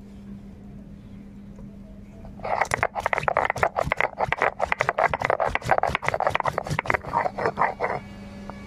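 Stone grinding on stone: a flat grinding stone and stone roller (sil-nora) crushing whole garam masala spices (cinnamon, cardamom, cloves) into a paste. Quick back-and-forth scraping strokes start about two and a half seconds in and stop near the end.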